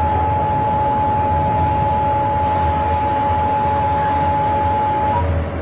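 Emergency Alert System attention tone: one steady tone that cuts off about five seconds in, announcing the spoken alert that follows. Under it runs the low rumble and hiss of a moving train.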